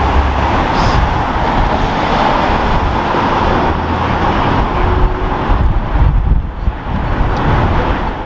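City street traffic: cars driving through an intersection, with a steady low rumble.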